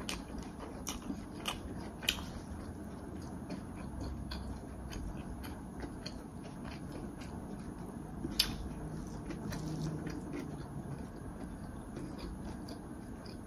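A person chewing food, with scattered small clicks and one sharper click about eight seconds in.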